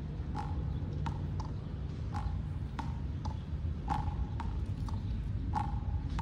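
An animal's short, sharp calls repeating about twice a second, over a steady low rumble.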